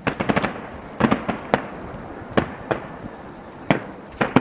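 Aerial fireworks shells bursting: a quick cluster of bangs at the start, then single and paired bangs every half second or so, about a dozen in all, each trailing off briefly.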